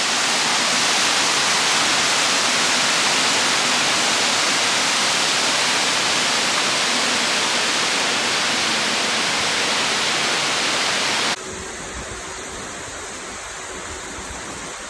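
Bridal Veil Falls' water pouring down close by, a loud steady rush. About eleven seconds in it cuts abruptly to a quieter steady hiss.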